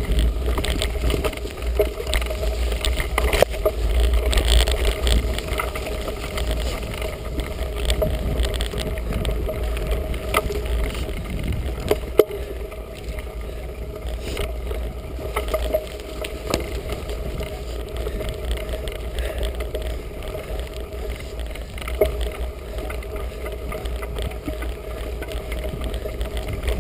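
Felt Edict Elite mountain bike ridden along a muddy woodland trail: steady rumble from the tyres and wind on the GoPro's microphone, with frequent sharp clicks and knocks as the bike jolts over rough ground.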